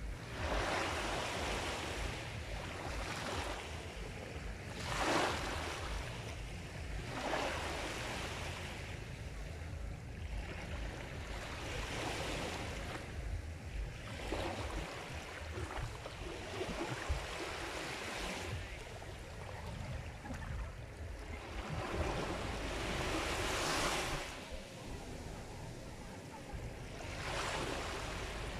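Sea waves washing onto a shore, each wave a swell of rushing surf every two to four seconds, over a constant low rumble.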